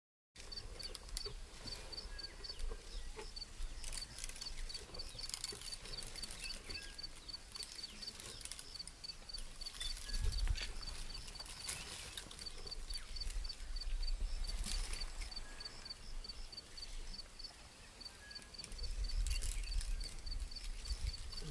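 African elephant feeding in an acacia thorn bush: crackling and rustling of branches as its trunk pulls and strips them, with a few low rumbling swells. An insect chirps steadily several times a second throughout.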